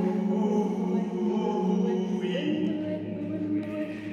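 Voices holding long sung notes that echo in a large concrete tunnel. A second, lower held note comes in about two and a half seconds in.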